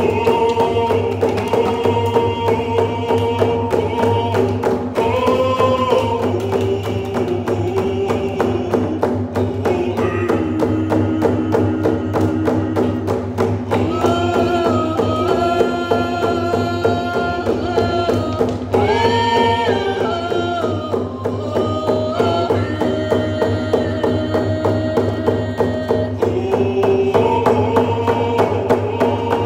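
Canoe family song: several voices singing together in unison over a steady, even beat on hand-held frame drums. The melody climbs higher about halfway through, then settles back.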